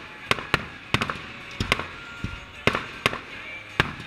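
Aerial fireworks going off: a string of sharp bangs from bursting shells, about eight in four seconds, unevenly spaced.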